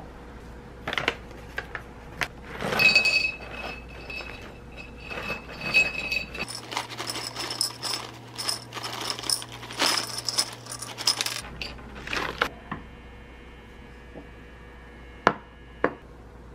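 Crunchy snack sticks poured from a bag onto a ceramic plate, a dense run of small clicks and clatters lasting about five seconds, with ceramic clinks as the plate is handled before it. Two sharp knocks near the end.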